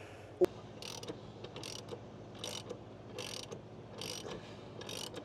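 Hand socket ratchet clicking in repeated short strokes, about one every second, on a riding lawnmower's blade bolt, with a single sharp click near the start. The blade spindle is turning along with the bolt instead of the bolt tightening.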